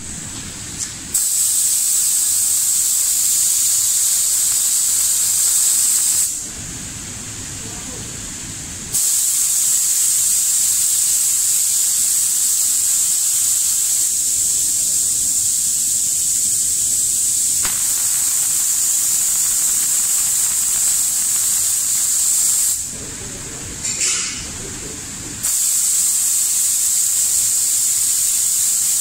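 Air spray guns of an automatic eyeglass-frame spray-painting machine hissing steadily as they atomize paint onto the frames. The spray cuts off for a few seconds about six seconds in, and again a little after twenty-two seconds, then starts again each time.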